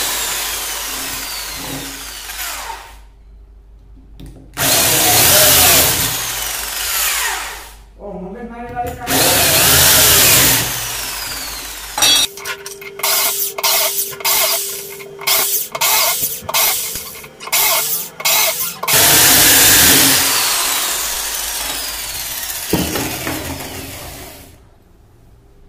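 Corded electric drill boring holes through aluminium strips on a wooden block: several runs of the motor that fade away as the trigger is let go, and in the middle a quick series of about ten short bursts.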